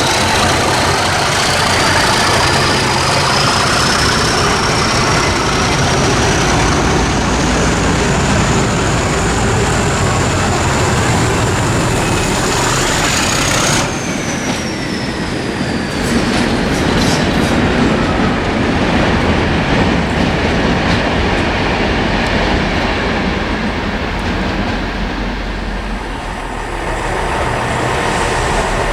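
A train running on the rails, wheels clattering, with a high thin whine that climbs slowly. About halfway through the sound drops suddenly and the whine falls away.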